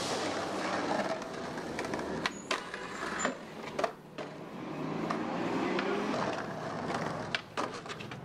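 Skateboard wheels rolling on asphalt, then several sharp clacks of a skateboard deck and wheels hitting concrete as tricks are tried on stairs and a ledge.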